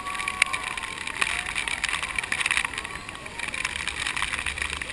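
Steady rushing of waterfall spray and wind buffeting a camera at the foot of Niagara Falls, with many sharp crackles as water drops strike the camera.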